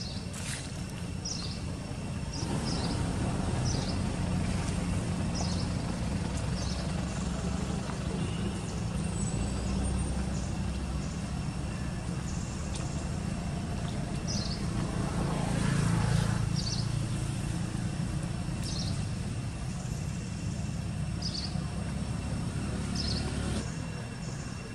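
Low rumble of a motor vehicle's engine running nearby; it starts a couple of seconds in, swells a little past the middle and stops shortly before the end. Over it are short high chirps about once a second and a steady thin high insect drone.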